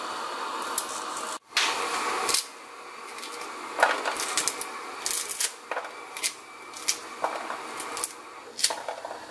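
Kernels of raw sweet corn pried off the cob by hand: irregular small snaps and clicks as kernels break free and drop onto a ceramic plate, with a brief break in the sound about a second and a half in.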